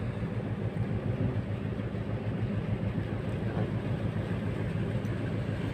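A boat engine running steadily at low speed, a low, even, rapidly pulsing hum.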